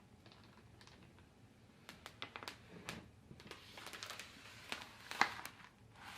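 Irregular light clicks and taps of small plastic and metal parts being handled, bunched together in the second half, with one sharper click about five seconds in.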